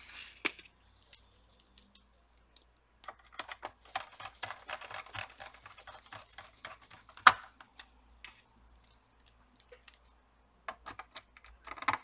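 Gloved hands handling a laptop's metal keyboard tray and parts: scattered light clicks and scratches, thickest between about three and seven seconds in, with one sharp click about seven seconds in.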